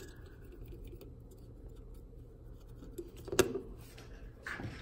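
Faint rubbing of an acetone-dampened cotton swab over a relay's circuit board, then a single sharp knock a little over three seconds in as the plastic relay is set down on a wooden workbench. A short rustle follows near the end.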